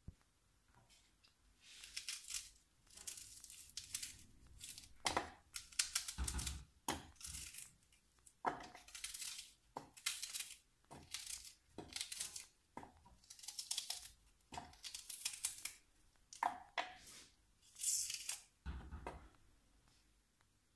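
Red onion being cut into chunks by hand over a stainless steel saucepan: a run of short, crisp crunching strokes, roughly one a second, with occasional sharp clicks as pieces drop into the pan.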